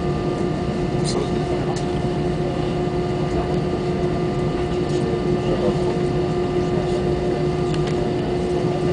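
Cabin noise inside an Airbus A320 taxiing after landing: a steady rumble with an even hum of a few constant tones from the engines and air conditioning, and a couple of faint clicks about a second in.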